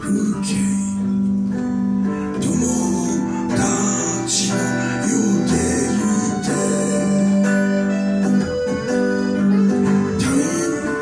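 Live acoustic band playing: two acoustic guitars sounding steady chords, with a voice singing over them near the end.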